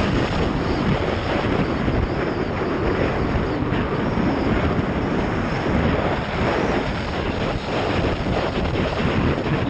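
Wind buffeting the microphone of a snowboarder riding downhill, mixed with the rush of the board sliding over snow; a steady, loud rushing noise.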